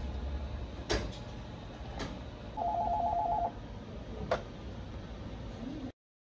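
Office desk telephone ringing once with a fast electronic warble lasting about a second. A few sharp clicks and knocks come around it, and the sound drops out completely near the end.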